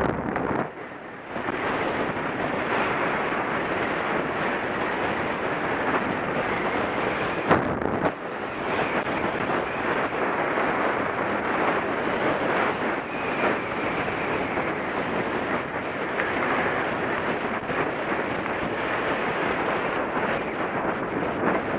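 Steady wind buffeting the microphone of a mountain biker's camera while riding fast on a gravel road, mixed with the rumble of tyres on gravel. The noise briefly drops about a second in, and there is a single sharp knock about seven and a half seconds in.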